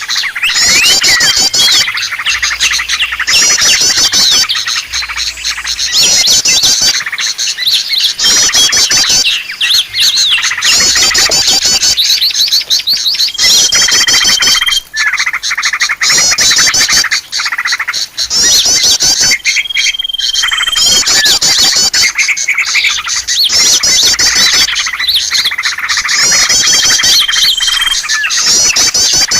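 A dense chorus of small songbirds chattering and twittering rapidly in quick, high trilling phrases. A few times a single steady whistle is held for about a second.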